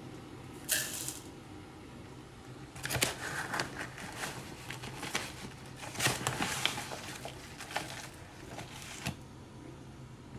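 Rustling and crinkling of a plastic food pouch and plastic scoop being handled, with a short scrape about a second in and then a run of rustles and light clicks, over a low steady hum.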